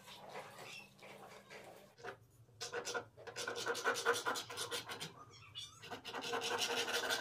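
From about two seconds in, a shop-made wooden beam compass scrapes its marking point around an arc on a wooden board, in a run of irregular scratchy strokes with some squeaks.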